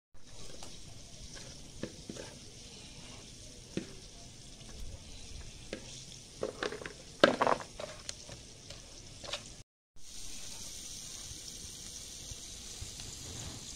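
Oil sizzling steadily in a frying pan over a wood fire. About six to nine seconds in, metal tongs clatter against plastic bowls as pieces are tossed in flour.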